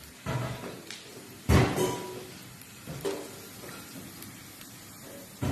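Sliced potatoes frying in a pan, with several sudden knocks and clanks of kitchen utensils and cookware; the loudest comes about a second and a half in, and a few ring briefly.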